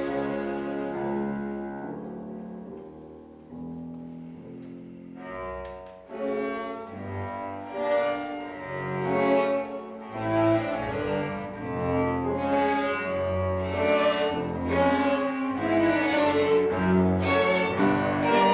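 Chamber ensemble of violin, cello and piano playing. A quiet, thinning passage gives way about six seconds in to fuller, busier playing that grows louder.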